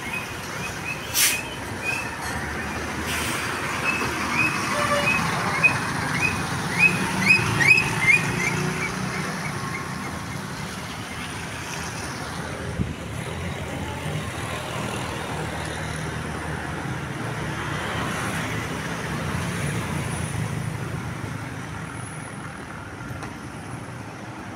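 Large bus engines running and passing by in traffic, a steady low rumble. About two seconds in, a quick series of short, high-pitched chirps begins and lasts several seconds.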